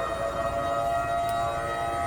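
Civil-defence siren sounding the nightly curfew warning, holding a steady wailing pitch.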